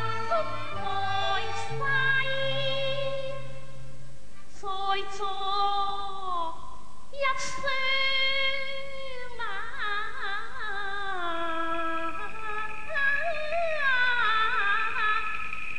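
Cantonese opera aria sung by a woman: a slow, ornamented vocal line with wide wavering glides over instrumental accompaniment. Near the end an instrument holds one long high note under the voice.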